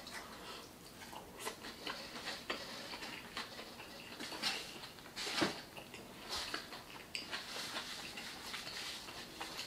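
Close-up chewing of a big mouthful of consommé-dipped birria taco: irregular wet smacks and clicks of the mouth.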